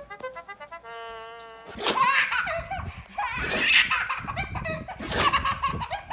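A few short musical notes ending in a held tone, then from about two seconds in a baby laughing in repeated fits of belly laughter.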